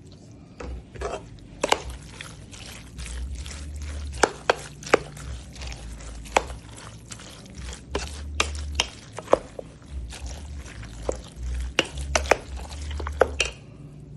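A kitchen utensil knocking and scraping against a bowl in irregular sharp taps as the macaroni mixture is stirred and handled.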